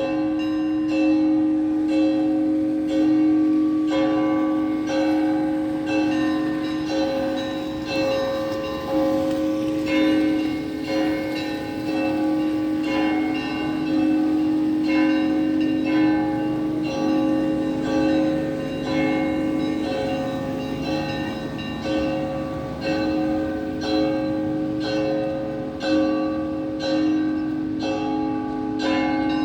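Church bells ringing: several bells of different pitches struck in a quick, repeating pattern about twice a second, over the steady hum of a deeper bell's lingering tone.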